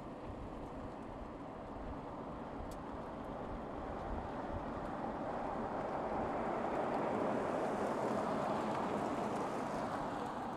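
Mercedes-Benz S500 Coupé driving past at speed, its tyre and wind noise swelling as it approaches, loudest about three quarters of the way in, then cut off suddenly near the end.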